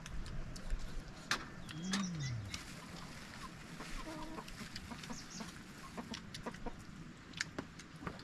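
Chickens clucking, in short calls scattered throughout, with one brief rising-and-falling call about two seconds in.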